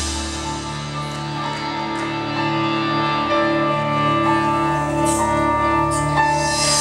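Music with long held chords over a steady low bass note.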